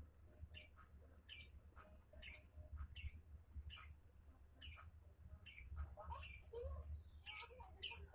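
Lovebird singing non-stop: a string of short, high, sharp chirps, a little over one a second, with lower warbling notes joining in from about six seconds in. A steady low hum runs underneath.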